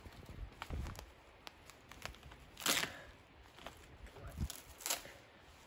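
Birch bark being pulled and torn from a tree by hand: scattered crackles and two louder short rips, the first about two and a half seconds in and the second near the end, amid rustling in the brush.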